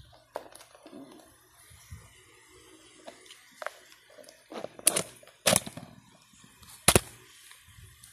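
Clear plastic food container being handled and its snap-on lid pried open: a string of sharp plastic clicks and knocks, the three loudest about five, five and a half and seven seconds in.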